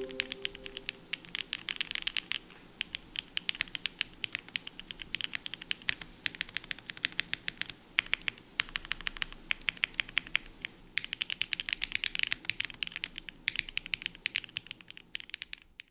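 Typing on a QK Cub65 65% aluminium keyboard built with all its included foams and lubed Namazu switches: a steady run of keystroke clicks with stretches of faster typing, a foamy, marbly sound.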